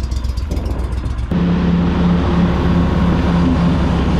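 Boat's outboard motor running, with a steady low hum. About a second in it turns suddenly louder and noisier, with a pulsing hum, as the boat gets under way.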